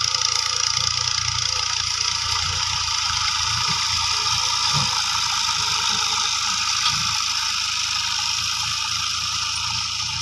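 Fiat 480 tractor's diesel engine running steadily under load as it pulls a seed drill through tilled soil.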